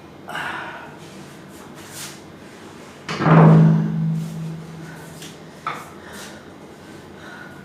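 A single heavy thud about three seconds in, with a low ring that fades over about a second. A few softer, shorter knocks and rustles come before and after it.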